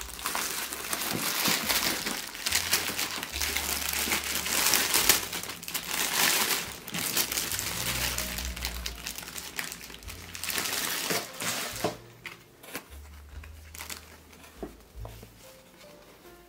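Thin clear plastic bag crinkling and rustling loudly as it is handled and pulled open to get at the postcards inside; the crinkling dies down about twelve seconds in.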